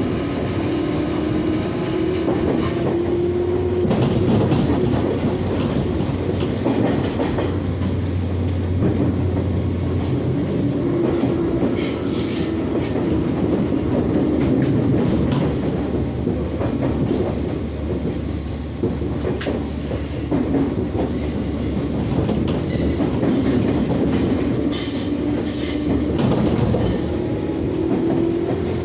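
JR 211 series electric train running at speed: the traction motors whine and rise in pitch as it accelerates at the start and again near the end, over the steady rumble and clatter of wheels on rail joints.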